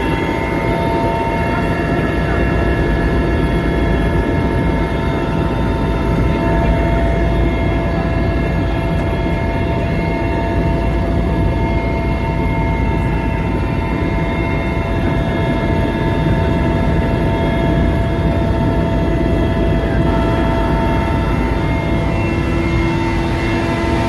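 Helicopter in flight heard from inside its passenger cabin: a loud, steady rumble from the engines and rotor, with several constant whining tones over it.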